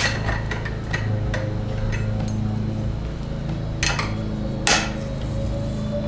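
Background music with a steady low bass line, with a few sharp knocks of a tool on metal, the loudest two about four and five seconds in.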